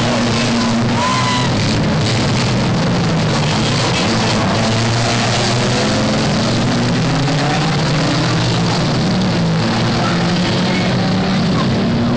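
Banger racing cars' engines running together in a loud, distorted, steady din, their pitches rising and falling, with music mixed in.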